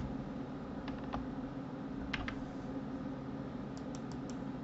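Computer keyboard and mouse clicks: a few scattered keystrokes, then a quick run of about four clicks near the end, over a steady low hum.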